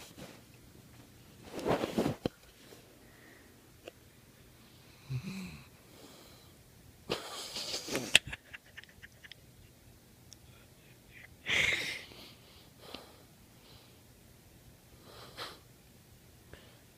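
Snoring: a loud, wheezy breath every few seconds, some with a hissing sound, with little else between them.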